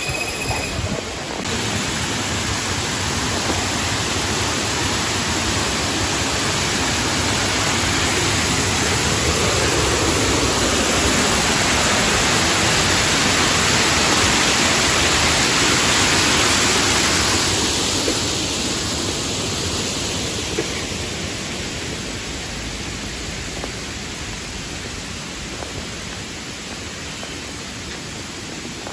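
Stream water rushing over a small cascade and rocks, a steady noise that grows louder toward the middle and then softens.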